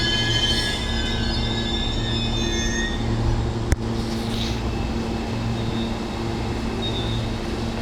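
Electric passenger train at a station platform: high-pitched squealing from its wheels and brakes for the first three seconds or so, giving way to a steady low hum from the train, with one sharp click near the middle.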